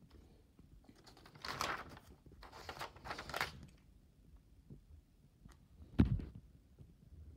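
Paper pages of a spiral-bound notebook being turned, two rustling sweeps one after the other, then a single dull thump about six seconds in.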